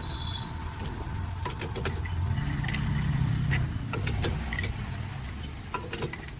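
Low machine rumble in a metalworking shop, with scattered light metallic clinks and ticks.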